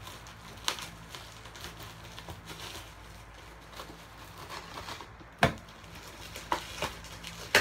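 Scissors snipping at taped bubble-wrap packaging, with plastic crinkling and scattered small clicks as it is cut and pulled open, and one sharp knock about five and a half seconds in.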